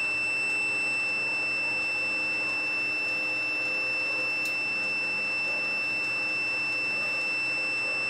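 Digital multimeter's continuity beeper sounding one steady, unbroken high-pitched tone while its probes are held on the yellow and red leads of a washing-machine motor. The beep shows a closed, low-resistance path: the motor's two windings in series read about 10.5 ohms.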